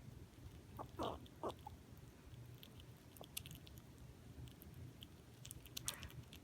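Baby squirrel gnawing and chewing peanuts: scattered small crisp clicks and crunches, with a few louder short sounds about a second in.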